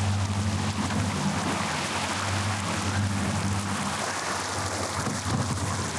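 Outboard motor running with a steady low hum under a loud rush of churning wake water and wind noise.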